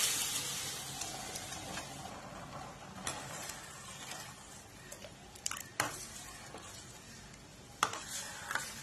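Thick mashed chana dal being poured into boiling jaggery syrup in a steel pot, with a hiss that dies down over the first two seconds. Then a steel ladle stirs it in, clinking sharply against the pot several times over the bubbling.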